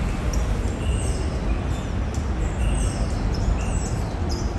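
Steady low outdoor rumble of city background noise, with faint high bird chirps and short falling whistles scattered through it.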